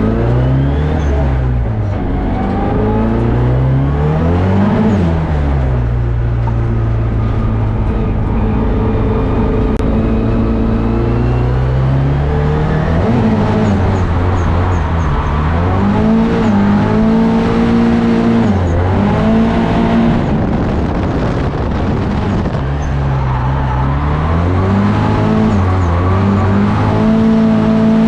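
Nissan S14 drift car's engine revving hard and falling back over and over, its pitch climbing and dropping every few seconds as it drifts.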